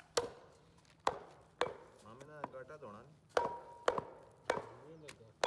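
Meat cleaver chopping goat meat and bone on a wooden log chopping block: about seven sharp, unevenly spaced strikes, a couple of them ringing briefly.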